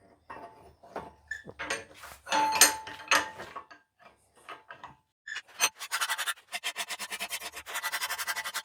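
Hand file rasping across the hardened-then-annealed steel faces of a slot punch held in a vise, in uneven strokes; about six seconds in, a quick, even run of strokes begins at about six a second.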